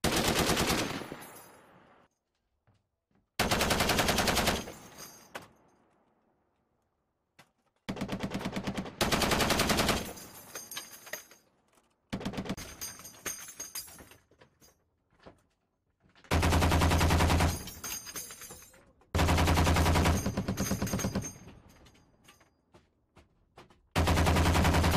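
Browning M2 .50 caliber heavy machine gun firing short bursts of automatic fire, about eight bursts of one to two seconds each. Each burst is followed by a fading echo, and the longest, loudest bursts come past the middle.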